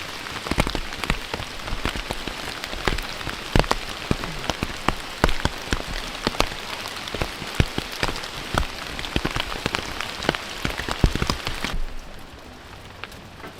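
Rain falling, with many individual drops striking close by as sharp pattering taps. Near the end the sound cuts abruptly to a quieter, duller steady noise.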